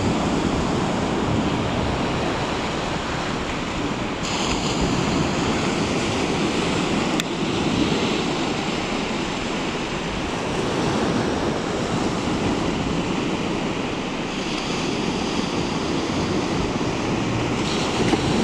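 Sea surf washing steadily onto the beach, swelling and easing in slow waves, with wind on the microphone.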